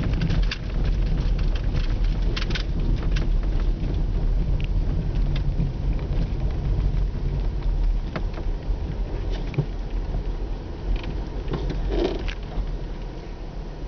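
Car driving slowly on a snow-packed, icy road, heard from inside the cabin: a steady low road and engine rumble with scattered crackles.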